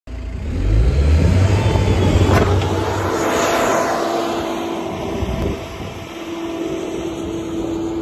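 Diesel engine of a 1999 New Holland LS170 skid steer running as the machine drives close by and then away. The engine is loudest in the first three seconds and eases off after that, leaving a lighter running sound with a steady hum.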